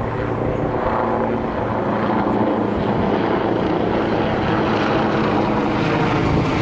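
Comeng electric multiple unit train running into the platform, its motors and wheels on the rails making a steady rumble that grows louder as it nears.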